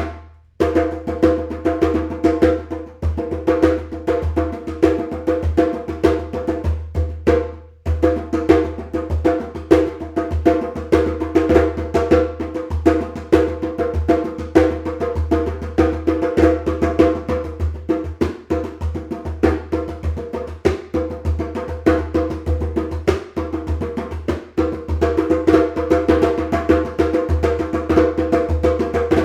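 Medium-size djembe played by hand in a fast, continuous rhythm, mixing deep bass strokes with higher tone and slap strokes. The playing stops briefly about eight seconds in, then carries on.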